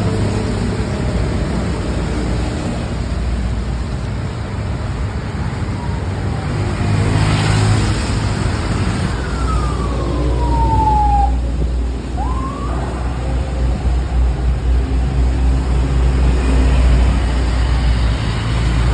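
Heavy bus engine rumbling loudly at close range. About ten seconds in, a siren-like horn note slides down in pitch for a couple of seconds, followed by a short rising chirp.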